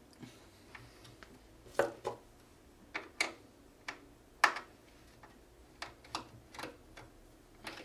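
Phillips screwdriver working a cross-head screw out of the rear of a Synology DS415+ NAS case: irregular small metallic clicks and taps, the loudest about halfway.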